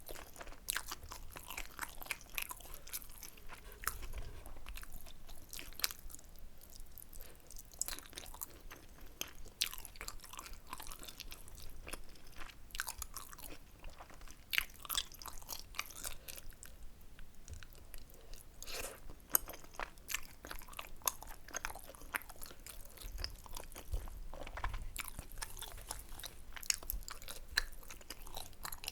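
Close-miked chewing of tteokbokki, Korean rice cakes in spicy sauce: a dense, irregular run of wet clicks and small crunches from the mouth, with no pauses.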